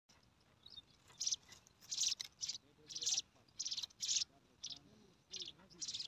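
Brown prinia nestlings begging: short high-pitched calls in quick repeated bursts, about two a second.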